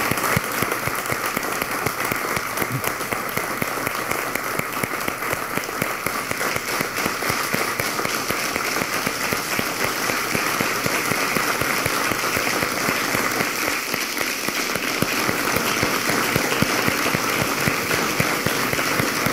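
Steady, sustained applause from a standing studio audience and cast: a standing ovation.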